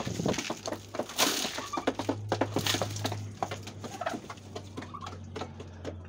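Turkeys pecking feed from a metal pan: a quick, irregular run of beak taps with a few louder rustles, and some soft bird calls.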